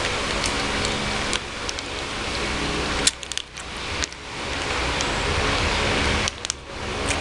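Steady background hiss and low hum, like a running fan, with a few faint clicks; it dips away briefly twice, about three seconds in and again near the end.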